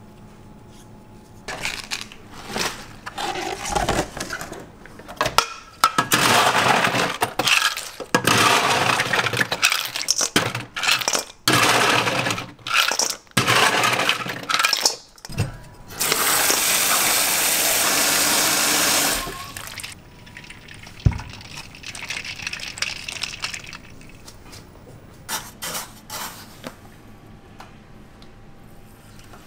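Food-prep clatter: tomato chunks and ice cubes clinking and knocking into a plastic blender jar and a metal bowl, many sharp knocks in quick succession. Just past the middle comes a steady rushing noise for about three seconds that cuts off suddenly, followed by a few scattered knocks.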